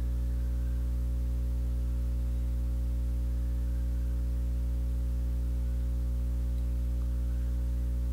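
Steady low electrical hum with a ladder of overtones, unchanging in pitch and level.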